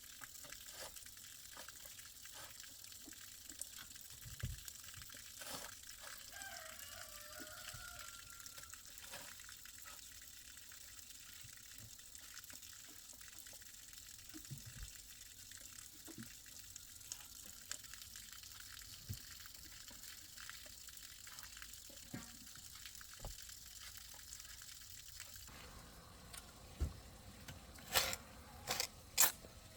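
Water running steadily, with scattered light knocks. The running stops suddenly about 25 seconds in, and a few sharp knocks follow near the end.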